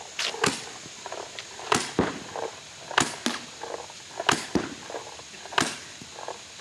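Paintball marker firing: sharp pops, mostly in quick pairs, repeating every second or so.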